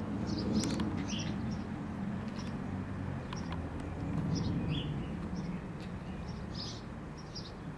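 Small birds chirping in short calls, repeating over and over, over a steady low hum.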